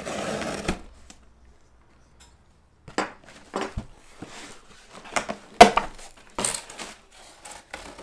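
A knife slitting the packing tape on a cardboard shipping box, then the box flaps being pulled open with rustling cardboard and a series of sharp knocks, the loudest about halfway through.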